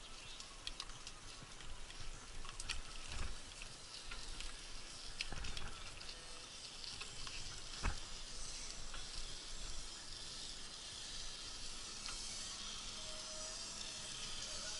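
Ride noise from a camera on a vehicle travelling a bumpy dirt track: a steady hiss with scattered knocks and rattles. The hiss grows louder about halfway through.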